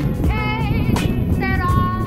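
Background music: a high melody line with vibrato over a steady beat.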